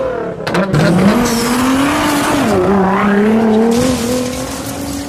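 Sports car engine revving: the pitch climbs about a second in, holds, drops back a little past the middle, then rises slightly before fading near the end.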